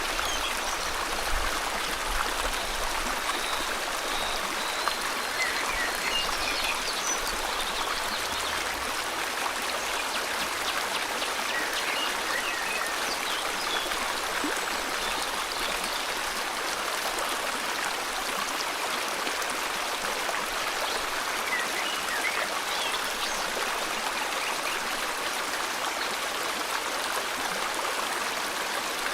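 Steady rush of flowing river water, with faint scattered bird chirps above it.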